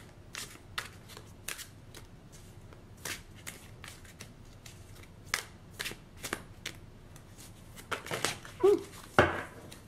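A tarot deck being shuffled by hand: short card rasps and flicks at irregular intervals, coming louder and closer together near the end.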